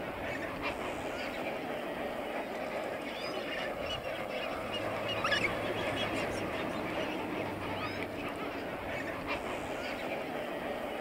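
A large flock of lesser flamingos calling together: a continuous dense, goose-like honking babble, with one louder call about five seconds in.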